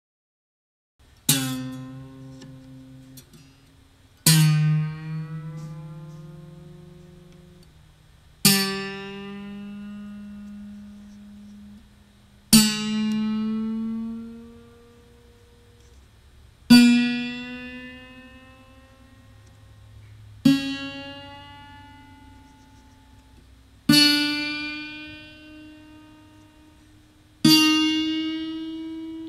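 A single guitar string plucked eight times, about every four seconds, while its tuning peg is turned: each note rings and dies away, and the pitch climbs from note to note, sometimes sliding upward as it rings, as the string is tightened.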